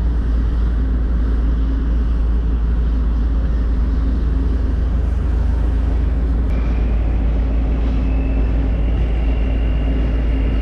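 Grain truck engine running with a steady low drone, heard from inside the cab. A faint high whine comes in about six and a half seconds in and holds, rising slightly.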